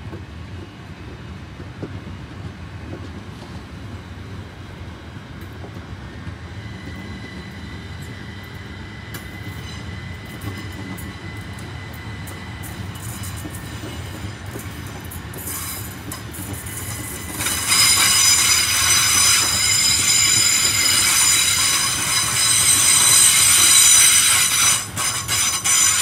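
Southern Class 377 Electrostar electric multiple unit passing, its running rumble mixed with wheels clicking over rail joints. About two-thirds of the way through, a loud, high-pitched wheel squeal of several steady tones sets in and lasts for several seconds before dying away near the end.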